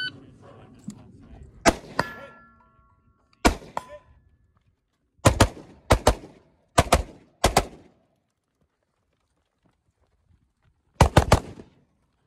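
A shot timer's start beep, then carbine gunfire: two single shots with steel targets ringing after them, four quick pairs of shots, and after a pause a fast string of about four shots near the end.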